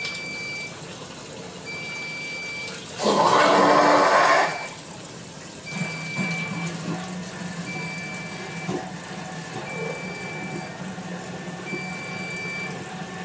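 Sump pump kicking on in the pit, switched on by a bumped float: a loud rush of water about three seconds in, lasting a second and a half, then the pump motor running with a steady low hum. An electronic alarm beeps throughout, about one second on and one second off.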